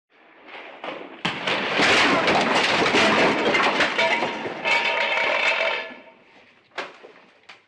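Destruction sound effect of something breaking apart: a short build, a sharp impact about a second in, then several seconds of dense crashing and cracking debris with some ringing, tailing off into a couple of last falling pieces near the end.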